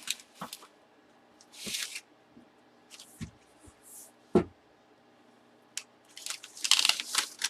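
Brief bursts of crinkling and rustling as a wrapped baseball bat and its packaging are handled, with a single knock about four and a half seconds in.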